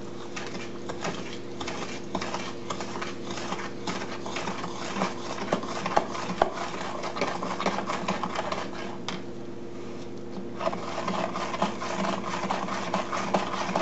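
A spoon stirring salt into cold process soap batter in a plastic pitcher: quick gritty scraping and clicking against the pitcher's sides. The stirring pauses briefly about nine seconds in, then resumes. A steady low hum runs underneath.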